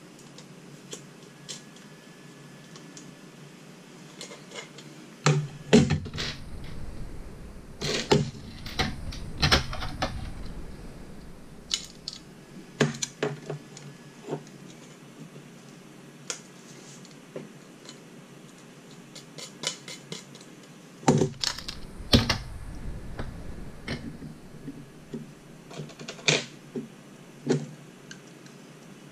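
Small metal parts being handled and fitted by hand onto an aluminium bracket: irregular clicks, taps and clatter of screws, nuts and solid state relays against the metal. The louder knocks and thuds come in two clusters, about a fifth of the way in and again about three quarters through.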